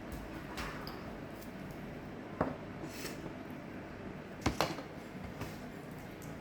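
Metal kitchenware clinking a few times, once about two seconds in and a louder pair a couple of seconds later, over a steady low background hum.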